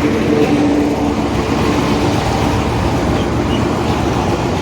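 Steady drone of machinery running, with an even low rumble and a faint held tone that fades out about two seconds in.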